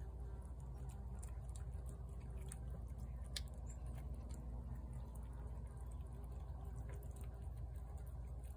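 A cat eating from a saucer: soft, irregular wet chewing and licking clicks, with one sharper click about three and a half seconds in, over a low steady hum.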